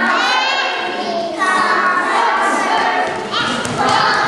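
Young children singing together in high voices, some notes held for a second or more, with thumps of feet on the floor near the end.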